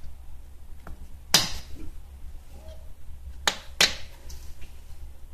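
Rubber dust caps being pushed by hand onto a VW Polo's front brake caliper guide-pin bolts: a few sharp clicks and knocks. The loudest comes about a second and a half in, and two more follow close together near the end.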